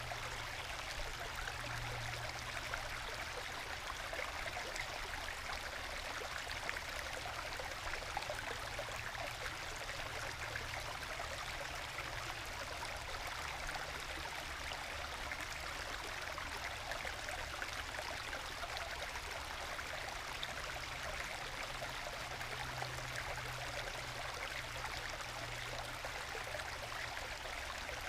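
Small forest stream trickling and gurgling over low waterfalls worn into solid bedrock, falling into small plunge pools. A steady, gentle babble with many tiny splashes and gurgles through it.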